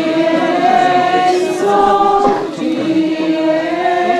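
A group of people singing a slow religious hymn together in long held notes, with a short break about halfway through.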